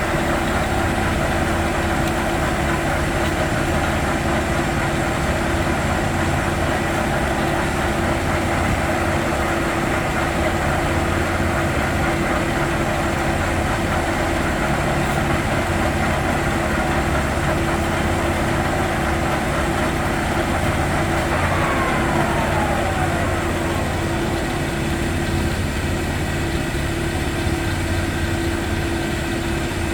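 Leblond HD 3220 heavy-duty engine lathe running under power, its 25 hp main motor and geared headstock giving a steady hum with a few constant whining tones. A little past two-thirds through, one whine slides down in pitch.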